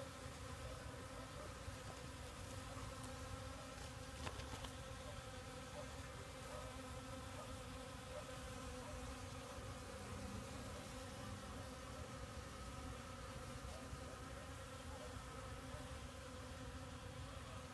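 Honeybees buzzing steadily as they forage in cactus flowers.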